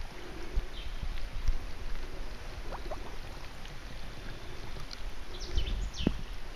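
Wind rumbling on the microphone, with a few short high chirps and falling calls scattered over it.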